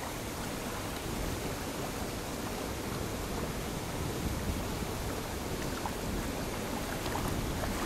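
Steady rushing noise of choppy open water and wind, heavy in low rumble, with no distinct motor whine from the radio-controlled racing boat.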